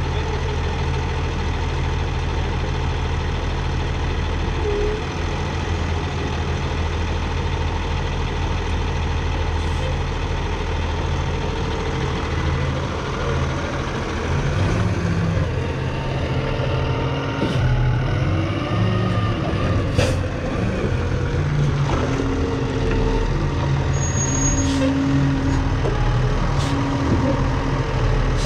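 Heavy engine of a bale squeeze loading three-tie hay bales, running steadily, then changing pitch and load from about halfway as the machine works, with a sharp clank about twenty seconds in.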